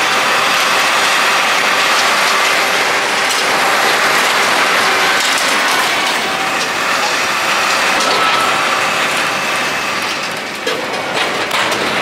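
Bale Baron bale bundler working in the hay field: a loud, steady rattling and clicking of its pickup conveyor and plunger mechanism. It eases slightly about ten and a half seconds in.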